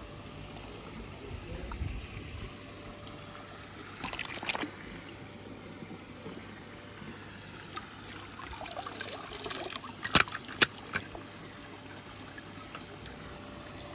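Steady trickling water, with a few sharp clicks about four seconds in and a louder cluster about ten seconds in.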